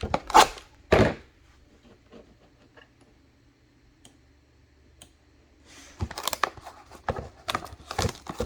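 Trading card pack wrapper being torn open and crinkled by hand: sharp crackling for about a second, a pause of a few seconds, then a dense run of crinkling from about six seconds in.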